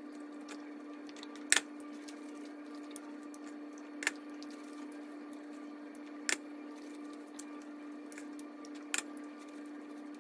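Eating sounds while he eats raw fruit and vegetables: a few short, sharp clicks and knocks, about one every two to three seconds, the loudest about one and a half seconds in, over a steady low hum.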